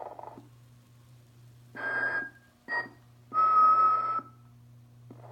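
Telco snoring, whistling Santa motionette playing its sleep sound: after the tail of a snore, three breathy whistled exhales, a short one, a brief chirp, then a longer, louder one, over a steady low hum.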